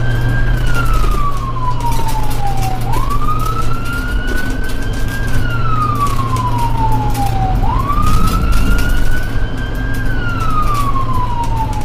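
Ambulance siren wailing: its pitch jumps up quickly, holds high, then glides slowly down, about three cycles repeating every four to five seconds, over a steady low rumble.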